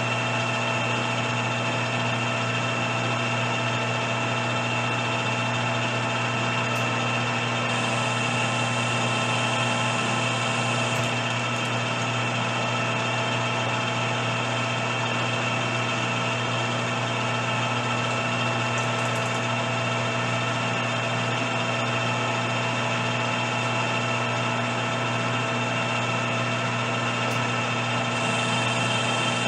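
Metal lathe running steadily with its chuck spinning during a thread-cutting pass, a constant hum with several fixed whining tones from the motor and gearing.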